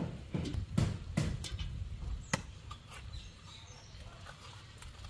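A quick series of dull thuds and knocks as green coconuts are handled and chopped open with a machete, ending with a sharp click about two seconds in. After that, only faint scraping as a spoon scoops the soft meat from a young coconut.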